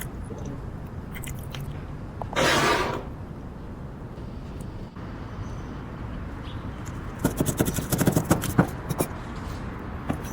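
A short scraping sound about two and a half seconds in, then a rapid clatter of clicks and knocks around eight seconds in, over a steady low hum.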